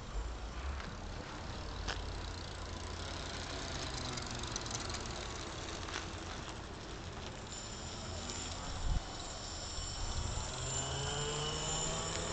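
Two-seat electric bicycle with two riders aboard passing close by, its electric motor whining with a gliding pitch that is loudest near the end, over a steady low rumble. One sharp knock about nine seconds in.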